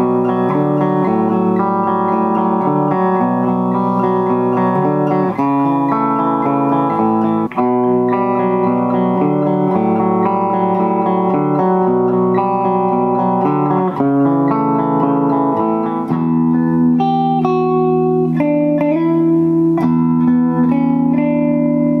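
Clean electric guitar on the bridge pickup, through a Blackstar amp into an Orange 2x12 cabinet, playing ringing chords and melodic lines. The same kind of passage is played in turn on a Fender Troublemaker Telecaster, with humbuckers, and on a Gibson Les Paul, for a side-by-side comparison of their tone.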